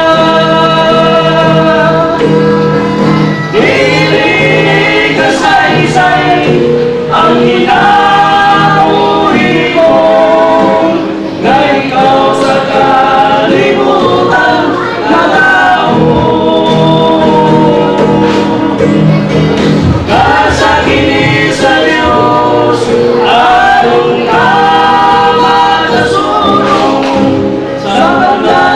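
A small group of men and a young boy singing a religious song together, with an acoustic guitar strummed along.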